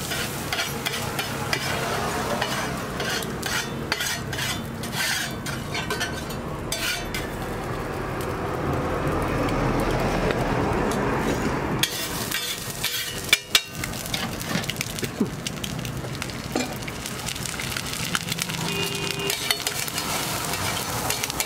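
Metal spatula scraping and chopping an egg mixture on a hot flat griddle (tawa) while it sizzles in oil, with many sharp clicks of the blade striking the griddle. A few louder knocks come a little past the middle.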